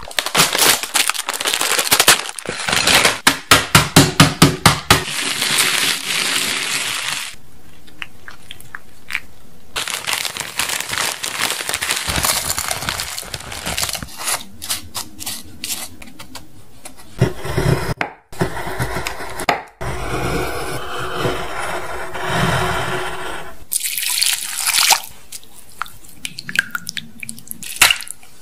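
Close-up food-preparation sounds: liquid pouring and dripping into a glass bowl, with a run of rapid, evenly repeated knocks about three seconds in.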